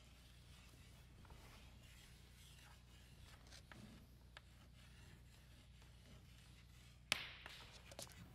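Near silence: room tone with a steady low hum and faint scattered ticks and rustles. A sharp knock about seven seconds in is the loudest sound, followed by a couple of smaller clicks.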